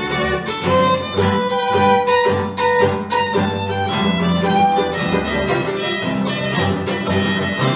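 Acoustic bluegrass string band playing an instrumental passage with the fiddle to the fore, over acoustic guitar, mandolin and upright bass keeping a steady beat.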